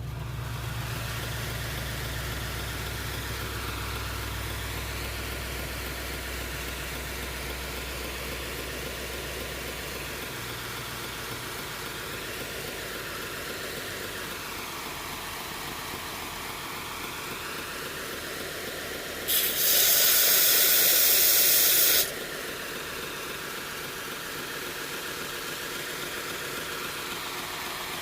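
Belt grinder with a 120-grit belt running with a steady hiss as a steel knife blade is ground freehand. About two-thirds of the way in, a much louder grinding hiss lasts about three seconds, as the blade is pressed harder into the belt.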